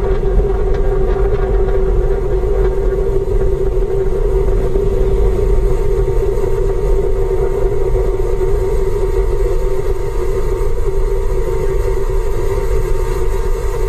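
Falcon 9 rocket's nine Merlin 1D engines rumbling steadily as the rocket climbs after liftoff.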